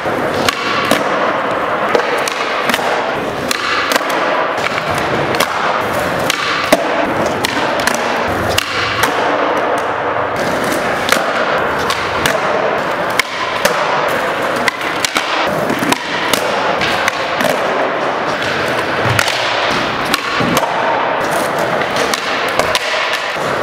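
Skateboards on a concrete skatepark floor: wheels rolling, with many sharp pops, clacks and landing slaps as the boards are kicked into flip tricks and come down, over a steady background din of the hall.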